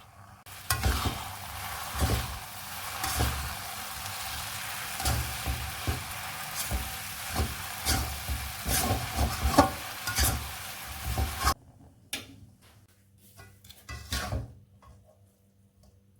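Food being stir-fried in a pan: a steady sizzle with repeated knocks and scrapes of a spatula against the pan. It cuts off suddenly about eleven seconds in, and a few light clicks follow.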